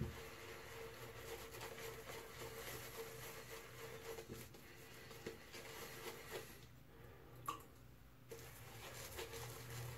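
Faint, soft squishing of a silvertip shaving brush working shaving-soap lather over the face, with a short pause about seven seconds in.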